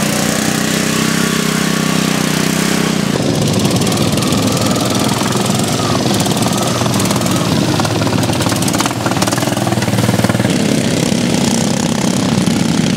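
Engines of racing ride-on lawn mowers running loud under load as they climb a muddy slope; the engine sound changes about three seconds in, from a steadier pitched note to a rougher one.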